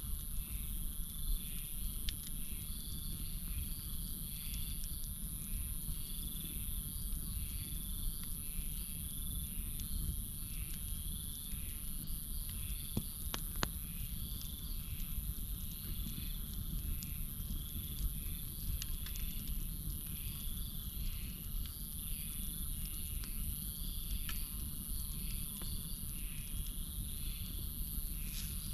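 Campfire burning with a low rumble and scattered sharp crackles and pops, under a steady high trill of night insects and a regular chirping call repeating about one and a half times a second.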